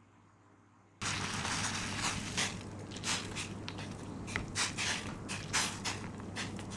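Ramen noodles boiling in a stainless steel pan of water, with a steady bubbling hiss and long wooden chopsticks stirring them, clicking and scraping against the pan. The sound begins abruptly about a second in.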